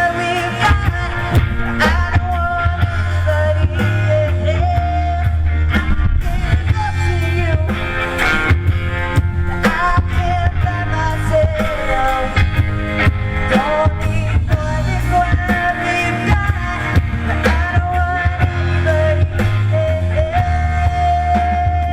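Live rock band playing a song: steady drum hits and a heavy bass line under a sustained, bending melody line.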